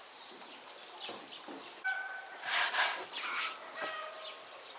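A chicken clucking in short calls, with a louder, harsher squawk about two and a half seconds in, over faint chirping of small birds.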